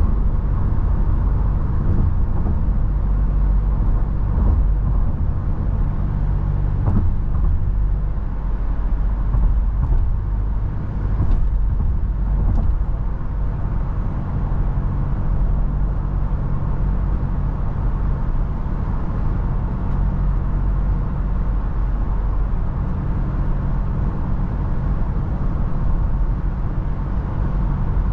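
Toyota FJ Cruiser's 4.0-litre V6 running at a steady cruise, a constant low drone under a steady hiss of road and wind noise, with a few faint knocks about 7 and 11 seconds in.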